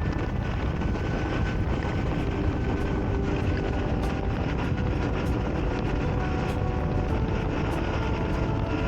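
Motorcycle running at a steady cruise with heavy wind rush on the microphone; the engine's pitch shifts slowly as the speed changes.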